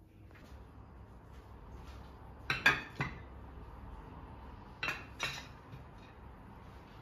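Ceramic and glass serving dishes set down on a breakfast table, clinking against the plates: three quick knocks about two and a half seconds in, then two more about two seconds later.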